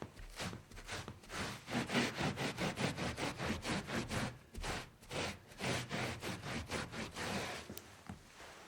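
Rapid back-and-forth scrubbing strokes, about three to four a second, of someone wiping up a spill; the strokes grow louder after the first second and taper off near the end.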